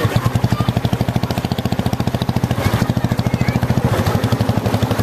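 Motorcycle engine idling with a steady, fast putter.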